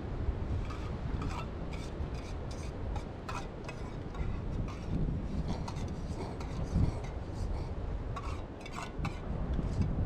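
Utensils stirring, scraping and clinking against camp cookware, in many short irregular strokes, over a steady low rumble.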